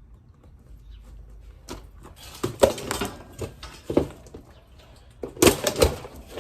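Irregular knocks, bumps and clatter as the old heat pump's outdoor unit is handled and moved by one person, with the loudest cluster of knocks near the end.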